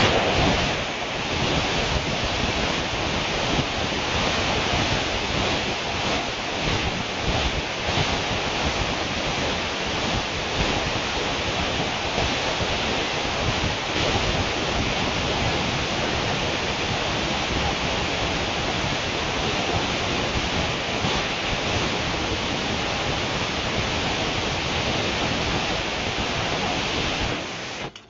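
Steady, loud rushing of air inside an inflatable bounce house, kept up by its blower, which cuts off suddenly near the end.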